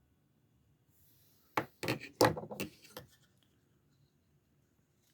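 Victorinox Adventurer pocket knife being handled, its tools clicking against their springs: a quick run of sharp clicks and rattles starting about one and a half seconds in and lasting about a second and a half.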